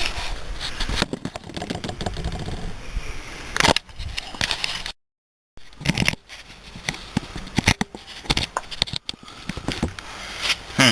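Irregular metal clunks, clicks and scrapes as a replacement strut is worked and angled into its mounting hole on the suspension, broken by a half-second of complete silence about halfway through.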